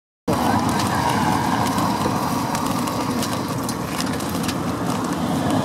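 Pedicab rolling over cobblestones: a steady dense rattle from its tyres and frame, with sharp clicks and knocks here and there.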